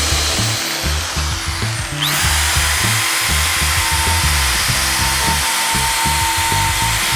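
Cordless drill spinning a wire wheel brush against a rusty steel wrench, scouring off the rust: a steady motor whine over a scratchy hiss, with the pitch rising about two seconds in as the drill speeds up. Background music with a beat plays underneath.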